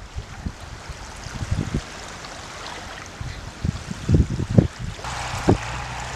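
Wind buffeting the microphone in irregular low gusts over the steady wash of small waves lapping a sandy shore. A low steady hum comes in about five seconds in.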